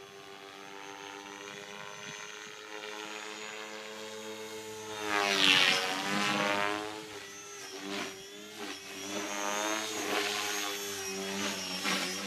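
Gaui X4 V2 electric RC helicopter in flight: the steady whine of its motor and rotor blades. About five seconds in it gets loudest, its pitch sweeping, and then it keeps rising and falling in loudness and pitch.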